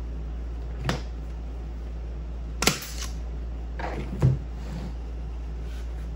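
Staple gun firing three sharp shots about two seconds apart, driving staples through canvas seat-cover fabric into a wooden seat frame, with fabric rustling just before the last shot. A steady low hum runs underneath.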